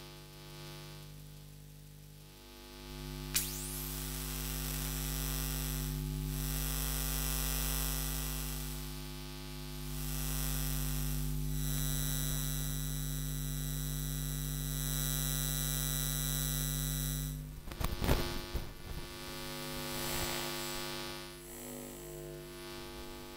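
Electromagnetic fields picked up and made audible by a listening device: a steady mains hum with high electronic whines that come and go every few seconds. There is a sharp click about three seconds in and a burst of crackling near eighteen seconds.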